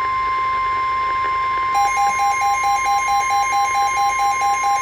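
Steady single-pitch emergency alert warning tone near 1 kHz, the weather-radio alarm tone that opens a National Weather Service warning. Less than two seconds in, an electronic alarm joins it, beeping rapidly and evenly at a slightly lower pitch.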